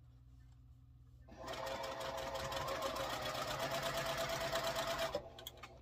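Electric sewing machine stitching a seam through quilt block pieces. It starts about a second in, runs steadily for about four seconds, then stops.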